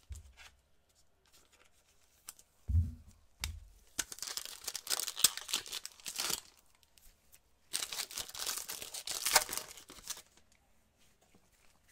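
Optic basketball card pack's wrapper being torn open and crinkled by gloved hands, in two spells of a couple of seconds each, after a pair of dull knocks about three seconds in.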